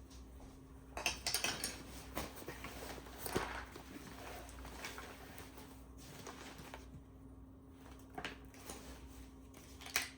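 Small clicks, taps and rustles of camera gear being handled, busiest over the first half, then a few single clicks. A faint steady hum runs underneath.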